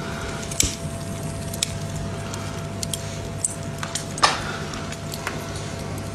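Snowball held over glowing charcoal embers: scattered sharp crackles and pops, the loudest about four seconds in, over a steady low hum.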